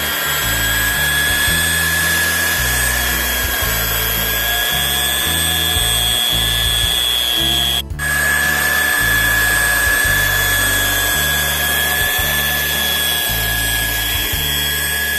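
A steady high-pitched whine, like a power tool running in a metal shop, over background music with a shifting bass line; both drop out briefly about eight seconds in, then carry on.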